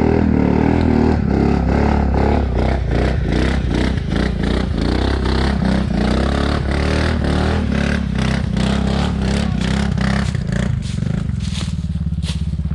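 ATV engine running at steady revs, with many short knocks and rattles of the machine working over rough ground.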